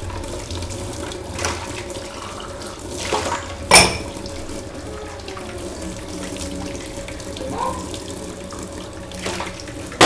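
Kitchen tap running into a sink. A few short knocks are heard, the loudest a sharp clink about four seconds in.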